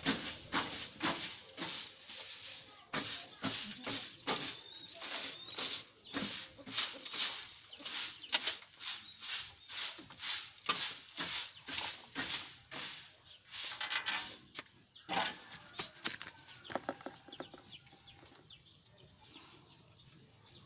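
Broom sweeping a wooden loft floor of pigeon droppings and straw, brisk strokes about two to three a second, fading after about sixteen seconds into fainter scraping.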